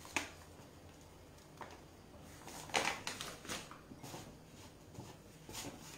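Hands kneading and working a soft dough of five-cereal flour on a floured wooden board: faint, irregular soft pats and rustles, a little busier around the middle.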